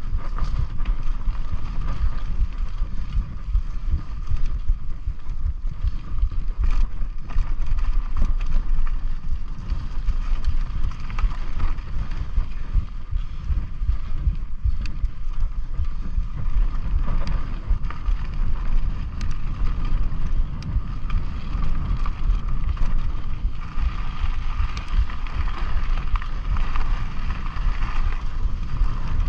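Wind buffeting the microphone of a camera on a mountain bike riding a dirt trail, with tyre and trail rumble, a steady high hum and a few scattered clicks and rattles.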